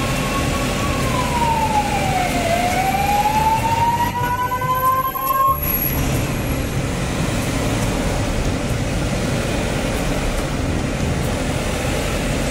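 Police vehicle siren wailing in one slow sweep, falling and then rising in pitch, and cutting off suddenly about five and a half seconds in. Steady engine noise runs underneath.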